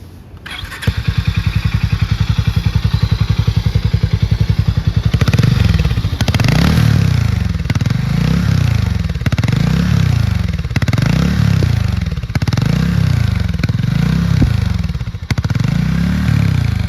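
Harley-Davidson X440's single-cylinder engine and exhaust starting up about a second in and settling into a steady, pulsing idle. It is then blipped with the throttle about seven times, roughly every second and a half, each rev rising and falling back to idle.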